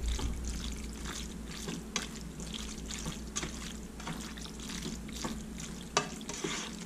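Spatula stirring and scraping through saucy noodles and ground beef in a frying pan, making irregular wet squishing and scraping, with a sharper knock about six seconds in.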